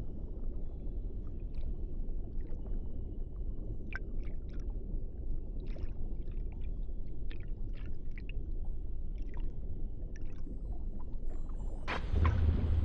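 Underwater ambience on a coral reef: a steady low rumble with scattered short clicks and crackles. Near the end a sudden, louder rushing sound sets in.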